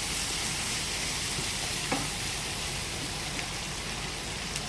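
Chicken pieces frying in oil in a hot sauté pan with ginger and garlic, a steady sizzle, with a couple of brief clicks of a utensil against the pan as it is stirred.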